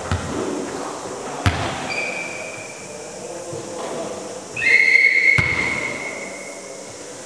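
Referee's whistle blown twice: a short steady blast about two seconds in, then a longer, louder blast about halfway through. A single sharp ball thud on the hall floor comes just before the first blast.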